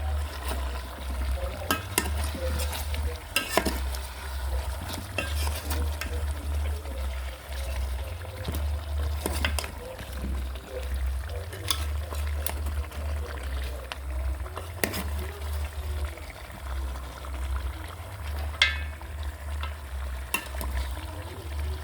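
Chicken and potatoes frying in a pot while being stirred with a spoon: the spoon scraping and knocking against the pot in irregular clicks over a low sizzle, with a steady low rumble underneath.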